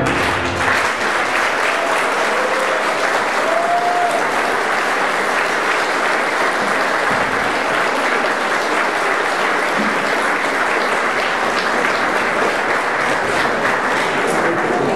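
Audience applauding steadily. The last of the dance music fades out just as it begins.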